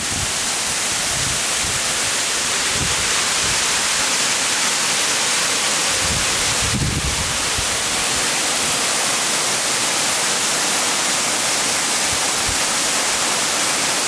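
Yamabiko Falls, a 28 m waterfall, pouring down a rock face: a loud, steady hissing rush of falling water. A few brief low thumps come and go, the clearest about three and seven seconds in.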